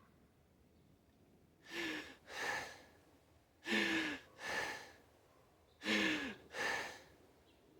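A person crying, drawing three pairs of heavy, shaky breaths about two seconds apart. Each pair opens with a short falling whimper.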